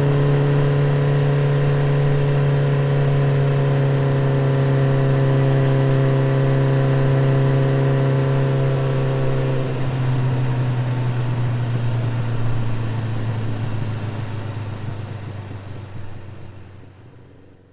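Yamaha FZ motorcycle's single-cylinder engine running steadily through its exhaust while riding at low speed. About ten seconds in the note drops slightly, and it fades away over the last few seconds.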